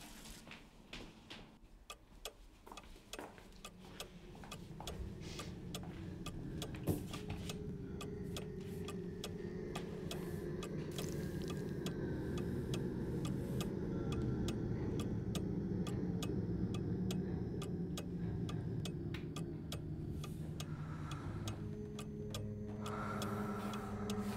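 A clock ticking steadily over a low drone that swells up from about four seconds in and holds.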